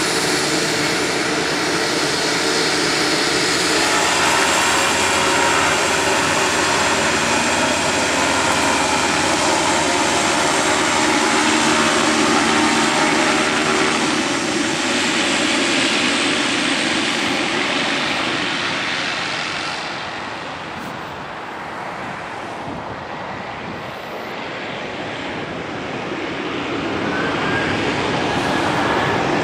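Twin Pratt & Whitney PT6A turboprops of a Beechcraft King Air 350ER (USAF MC-12W) running as the aircraft taxis: a steady turbine whine with propeller drone. It fades for a few seconds about two-thirds of the way through, then grows louder again near the end.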